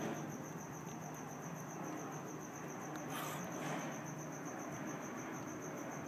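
A cricket chirping in a steady, evenly pulsed high trill that runs on without a break, over a faint background hiss.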